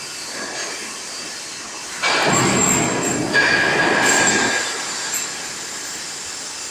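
GD-500 forging roll machine rolling a red-hot steel bar: a loud rolling pass of metal-on-metal noise starts about two seconds in and lasts about two and a half seconds, with a steady high tone in its second half, over the machine's steady running noise.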